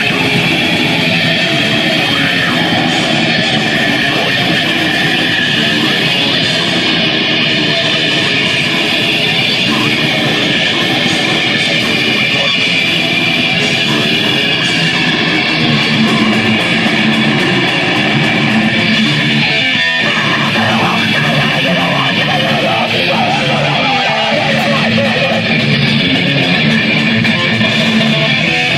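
Deathgrind band playing live, a loud, dense and unbroken wall of distorted electric guitar-driven music. It is muffled and distorted from being recorded through a camcorder microphone covered with a bandage.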